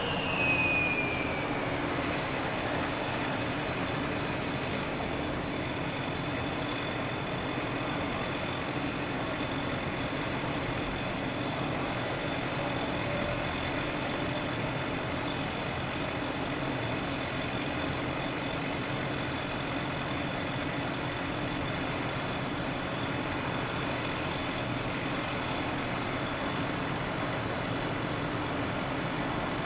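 A falling whine fades out about a second in, like a cutting saw spinning down. After it comes a steady engine drone at an even level, with no cutting or hammering strokes.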